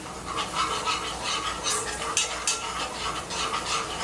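A utensil stirring a butter-and-flour roux in a skillet, scraping against the pan in repeated quick strokes, with the roux cooking on the heat.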